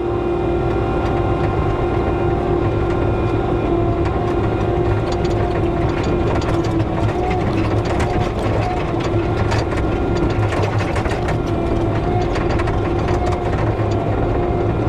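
Bobcat skid steer's diesel engine running hard with a steady whine, pulling a log out on a chain. Rattling and clanking go on throughout and grow busier from about five seconds in.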